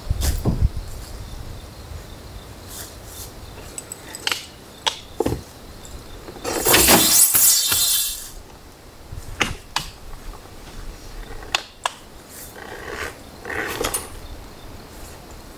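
Hard-shell rooftop tent and camping gear being handled during setup: scattered clicks and knocks. About six and a half seconds in comes a rasping run of rapid clicks lasting about a second and a half, the loudest sound.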